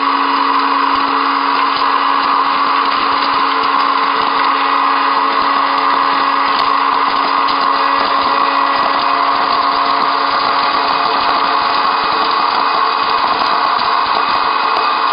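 Hot-air popcorn maker's fan and heater motor running steadily with a constant hum, while corn kernels pop inside and popped corn tumbles out of the chute.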